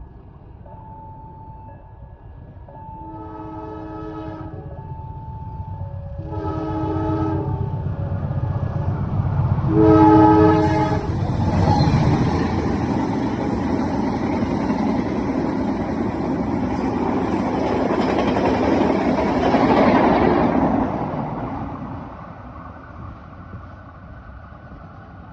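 Train locomotive sounding its horn four times as it approaches, each blast louder than the last, then the loud rush and clatter of the train speeding past, dying away near the end.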